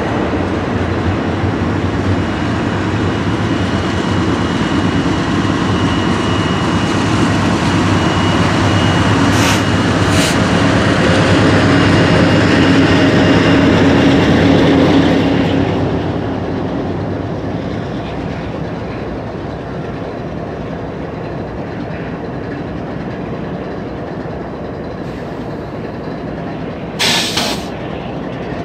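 Double-stack container freight train rolling past, its wheels running over the rails, with a faint high steady ring from the wheels. About halfway through the sound drops to a quieter, steady distant rumble, and a brief rush of noise comes near the end.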